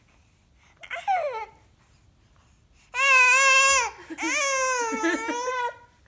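A 19-week-old baby crying out in protest: a short falling squeal about a second in, then two long high-pitched wavering whines.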